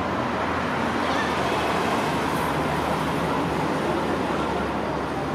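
Steady background din of distant road traffic, with faint shouts of children playing football.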